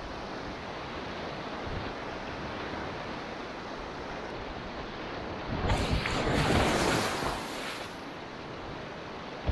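River water rushing around a kayak, a steady wash of noise, with a louder splash lasting about two seconds past the middle.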